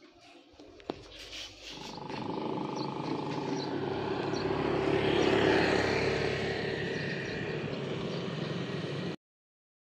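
A motor vehicle's engine passing on a road: it grows louder to a peak about five seconds in, eases off, and cuts off abruptly near the end. A single knock comes about a second in.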